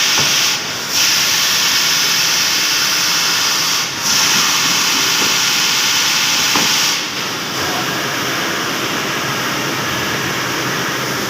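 Loud, steady hiss of running factory machinery. It drops briefly three times and runs a little quieter near the end.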